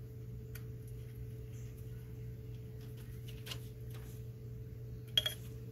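Faint, scattered metallic clicks of a socket on an extension being turned by hand to run a thermostat housing bolt down finger tight, with a sharper double click near the end, over a steady low hum.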